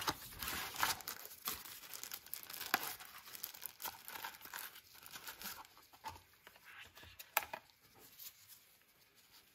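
Paperboard phone-box packaging being slid apart and handled with gloved hands: scraping and rustling of card, with a few sharp clicks of card on card. It dies down near the end.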